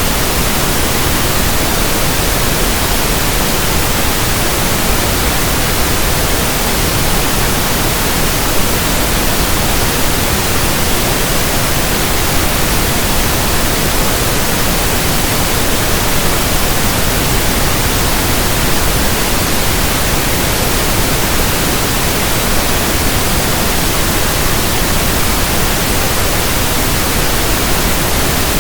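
Steady synthetic pink noise: an unbroken, even hiss with no tones, rhythm or changes.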